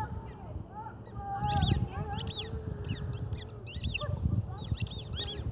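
A puppy chewing a squeaky ball toy, which squeaks in quick high-pitched clusters about every half second.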